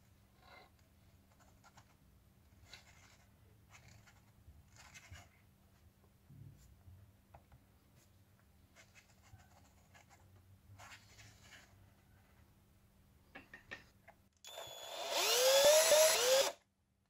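Cordless drill spinning a 1/14 RC truck axle's differential by its input shaft for about two seconds near the end, a whine rising in pitch several times before it cuts off suddenly. Before that, faint clicks and rustles of the plastic axle and rubber wheels being turned by hand.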